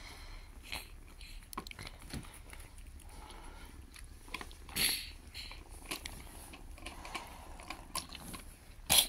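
Kittens eating from a bowl: soft chewing with scattered small clicks, a louder patch about halfway and a sharp knock near the end.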